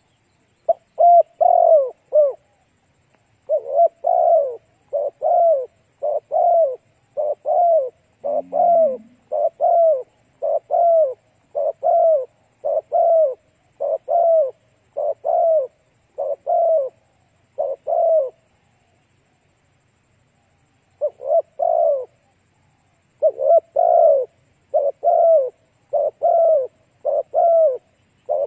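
Spotted dove cooing: a long run of short, arched coos at about one a second, stopping for a couple of seconds about two-thirds of the way through, then resuming.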